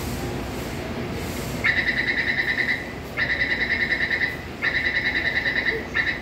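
Metro door-closing warning beeper: a fast-pulsing electronic beep that starts about a second and a half in. It sounds in three bursts of about a second each and a brief fourth near the end, warning that the doors are about to close.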